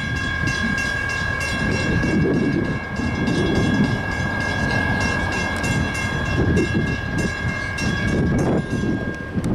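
A Nathan K5LA five-chime horn on a CSX AC44CW diesel locomotive blows one long, steady chord that cuts off just before the end. Underneath it is the low, uneven rumble of the approaching train.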